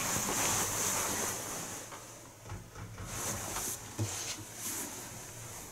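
Bedding rustling as a quilted duvet is pulled up and shifted in bed, in uneven spells, louder at first, with a sharp click about four seconds in.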